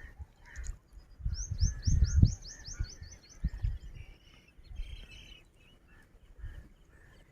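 A small songbird singing a fast trill of about ten high, downward-sweeping notes that slows and fades, followed by a shorter buzzy call. Low thuds sound underneath.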